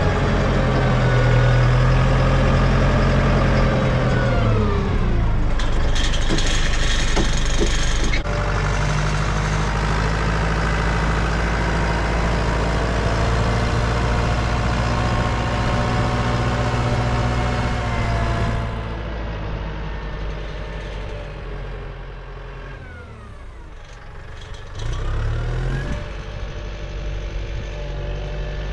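Farm tractor's diesel engine running under load while working its front loader, the revs falling about four seconds in and climbing again near the end. Clattering knocks about a quarter of the way through, and the engine is quieter for a stretch in the second half.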